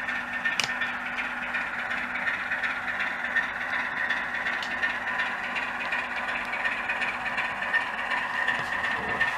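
DCC sound decoder in a model Class 25 diesel locomotive playing the Sulzer diesel engine sound through the model's small speaker: a steady engine running noise with a light clatter.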